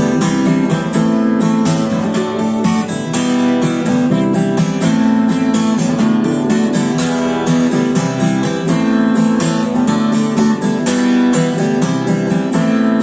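Instrumental passage of a rock ballad, led by a strummed acoustic guitar, with no singing.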